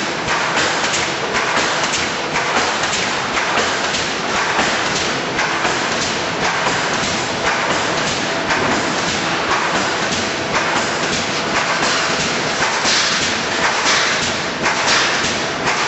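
Wire mesh welding machine running: a dense, continuous clatter of repeated thumps and knocks from the machine working.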